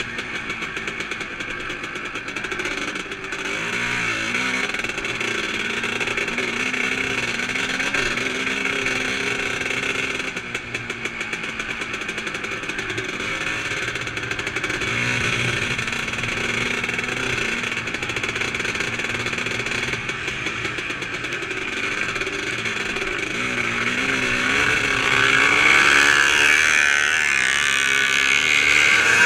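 Vintage 350-class motocross motorcycle engine heard onboard at racing speed on a dirt track, its pitch rising and falling with the throttle and gear changes. It grows louder over the last few seconds as the bike is revved harder.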